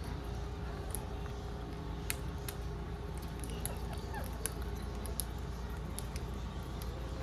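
Green parrot making scattered sharp clicks and a few faint short chirps over a steady low background hum.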